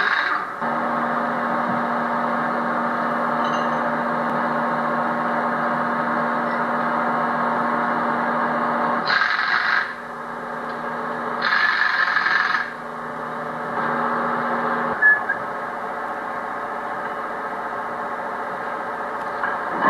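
Steady mechanical hum with a low steady tone, broken by two bursts of hiss about nine and eleven seconds in and a short sharp sound about fifteen seconds in.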